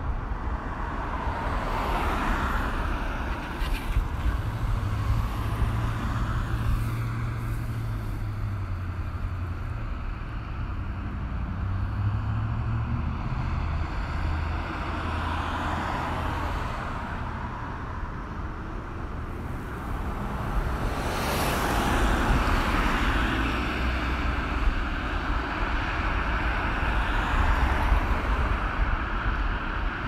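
Busy road traffic: a continuous wash of cars and trucks going by, swelling each time a vehicle passes close, with a low engine rumble from heavier vehicles partway through.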